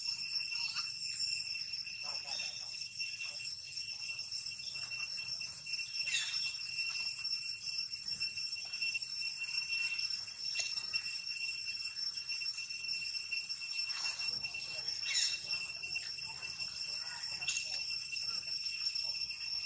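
Steady high-pitched insect chorus holding several shrill tones at once without a break, with faint scattered clicks and rustles over it.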